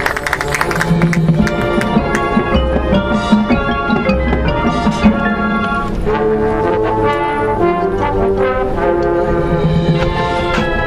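High school marching band playing: brass chords over mallet percussion and low drums.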